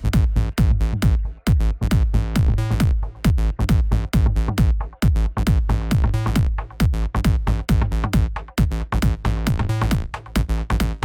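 Electronic dance music with a fast, steady beat over a bass line, with no vocals.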